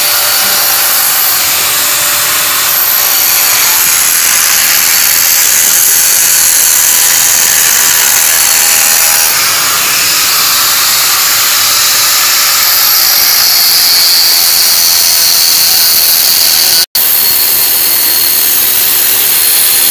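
A power tool runs continuously in exhaust-pipe repair work, making a loud, steady, hiss-heavy noise that cuts out for an instant near the end.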